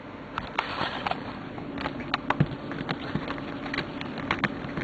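Handling noise: a run of light, irregular clicks and rustles as the trading cards and the camera are moved about, over a faint steady hum.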